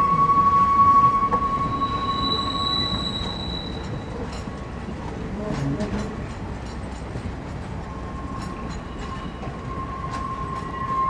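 Passenger cars rolling slowly through a curve, their steel wheels squealing on the rails in a steady high tone over a low rumble. The squeal is loud for the first few seconds, fades out, and comes back near the end.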